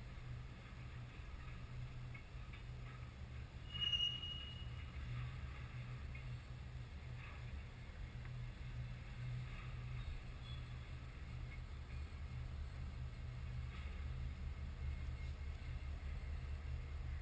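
A long freight train rolling past at a distance, a steady low rumble of wheels and cars, with one brief high squeal about four seconds in. A diesel locomotive in the train draws level near the end as the rumble grows slightly louder.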